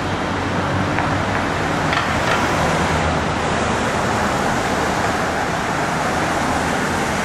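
Steady street traffic noise: a constant wash of passing road vehicles.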